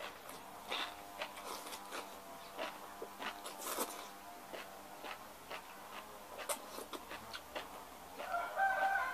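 Close-up eating sounds: chewing and small mouth and lip clicks as food is eaten by hand. Near the end, a long pitched animal call is held and then falls in pitch.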